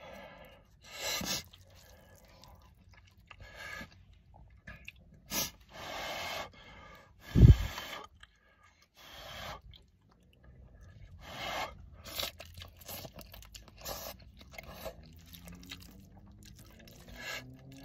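A person eating spicy instant cup ramen with chopsticks: slurping and chewing noodles in separate short bursts, with one loud low thud about halfway through.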